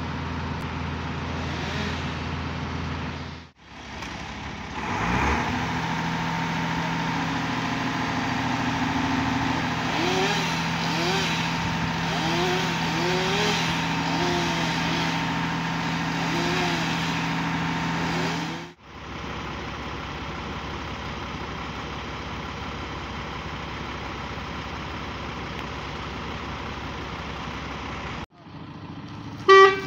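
Diesel fire-engine engines running steadily, first a STAR engine and then a Mercedes ladder truck; about five seconds in, one engine revs up. Near the end there is one short, loud pitched blast, like a warning horn.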